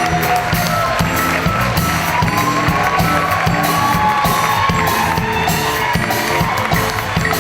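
Band music with drums and a bass line keeping a steady beat under a wavering melody.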